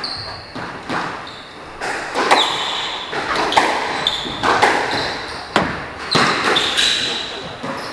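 Squash rally: the ball cracking off rackets and the court walls, a sharp strike every half second to a second, ringing in the enclosed court. Between strikes come short high squeaks of court shoes on the wooden floor.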